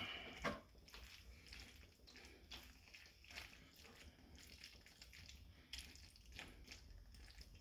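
Faint, irregular soft clicks and squelches of a spoon stirring pasta in a thick, melting Parmesan cream sauce in a pan.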